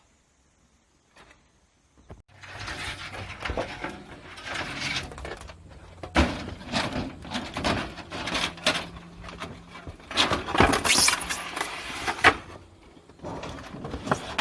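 Scraping, rattling and rustling of repair work with many sharp knocks, starting suddenly about two seconds in.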